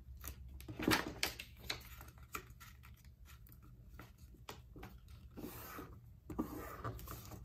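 A sheet of printer paper being folded and creased by hand on a tabletop: a string of short crinkles, rustles and soft taps, the loudest about a second in.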